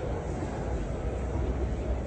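Steady low rumble with an even hiss over it and no distinct events: the background noise of a large indoor exhibition hall.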